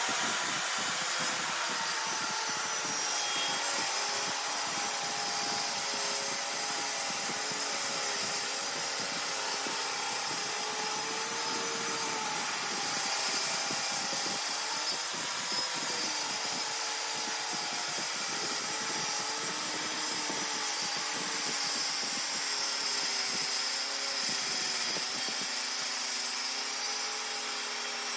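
Circular saw fitted with a 60-tooth fine-cut blade ripping a 1.5-inch-thick butcher block countertop lengthwise, running steadily under load with its pitch wavering slightly as the cut goes on.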